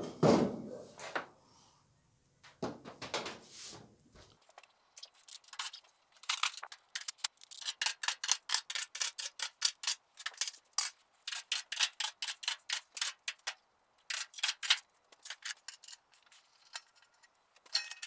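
Knocks as the clothes dryer's metal cabinet is handled, then runs of rapid, sharp clicking while the screws holding its back panel are undone.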